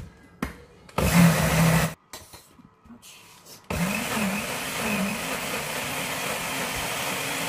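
Countertop electric blender, first pulsed for about a second, then, after a short pause, switched on and running steadily as it purées a thick kimchi paste of rice, garlic, ginger and chili. Its motor pitch wavers a little under the load.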